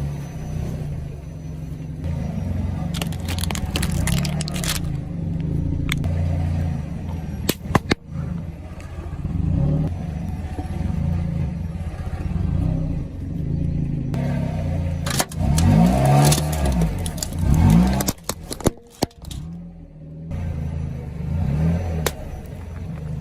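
A car engine running and revving, with clusters of sharp cracks and crunches a few seconds in, near eight seconds and again around fifteen to eighteen seconds, as objects are crushed.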